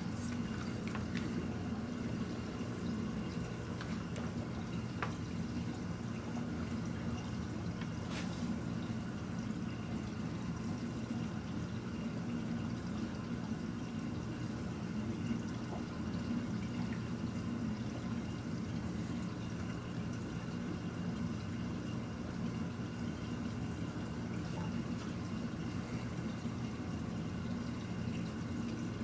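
Reef aquarium water circulation: a steady trickle and drip of moving water over a continuous low pump hum, with a few faint clicks in the first several seconds.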